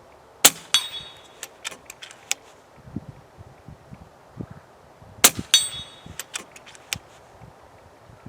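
Two suppressed shots from an FX Dreamline .25 PCP air rifle, about five seconds apart. Each is followed about a third of a second later by a ringing metallic clang, then a few small mechanical clicks.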